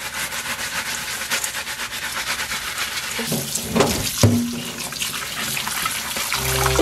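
Kitchen tap running into a stainless steel bowl of lemons in a steel sink, the water splashing over the lemons as the sugar scrub is rinsed off. Music comes in near the end.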